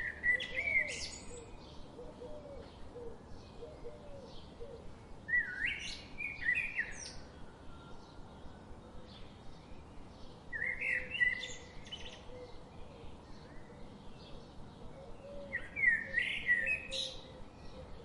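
A songbird singing a short phrase about every five seconds, four phrases in all, each lasting a second or so, with fainter chirps of other birds in between.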